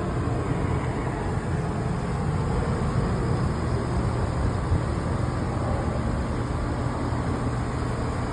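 Outdoor central air conditioner condensing units running: a steady fan whoosh over a low, even compressor hum.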